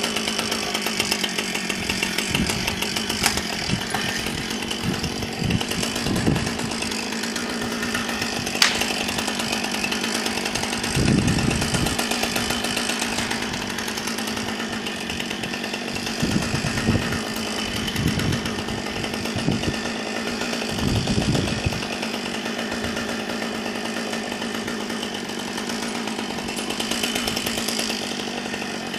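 Chainsaw running at a steady pitch, with a few short deeper rumbles through the middle stretch and a couple of sharp ticks.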